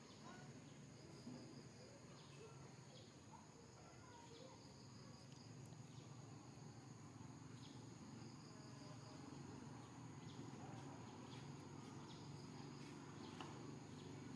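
Near silence: faint outdoor ambience with a steady high insect hum and scattered short chirps.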